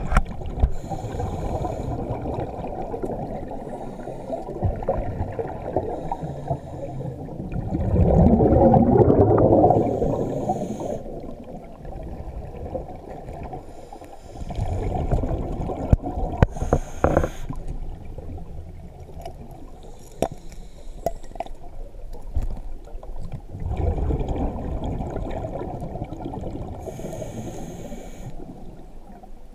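Scuba diver breathing through a regulator underwater: a short hiss on each inhale and a longer rush of bubbles on each exhale, repeating over several breaths, the loudest exhale about eight seconds in.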